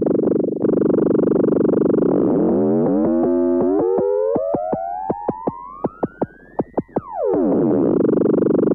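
Erica Synths Perkons HD-01 drum synthesizer playing a dense pattern. About two and a half seconds in, a pitched tone sweeps steadily upward over several seconds with short clicks in a steady rhythm. About seven seconds in it drops sharply in pitch and the dense pattern comes back.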